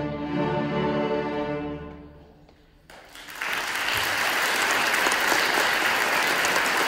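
School string orchestra of violins, violas, cellos and basses finishing a piece, its last chord dying away about two seconds in. After a short pause, audience applause starts about three seconds in and keeps going.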